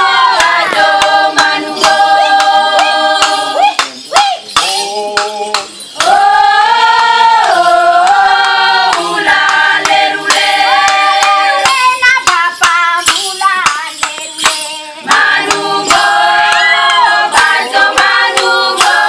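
A group of women singing a traditional Flores welcome-dance song together in long held phrases with short breaks, over many sharp clicks and rattles.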